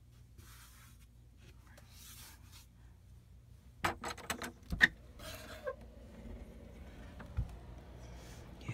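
Handling and rubbing noise: a phone and clothing rustling in the hand, with a cluster of sharp clicks and knocks about four to five seconds in, followed by more rustling.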